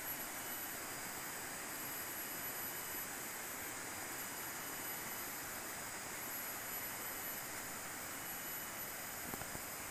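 Steady rush of shallow water running over a rocky riverbed and through a concrete irrigation channel at a sluice gate, with thin, steady high-pitched insect tones above it.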